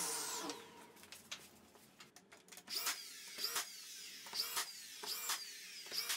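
Cordless DeWalt nail gun driving nails: a series of sharp clacks about once a second from about halfway in, each with a brief falling whine. A power tool's whine falls away and fades out in the first second.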